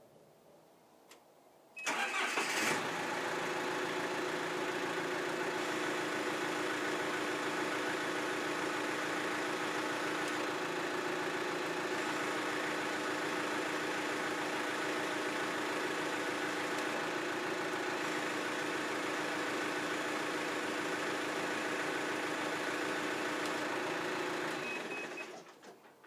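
Backhoe diesel engine running steadily, cutting in suddenly about two seconds in and dying away near the end, as the repaired auxiliary hydraulic circuit is run.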